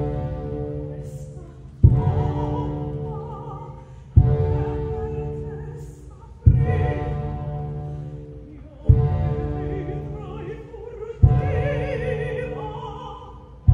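Live opera orchestra with a singer: a heavy low accented chord about every two and a third seconds, five times, each dying away, under a sung line with strong vibrato that swells near the end.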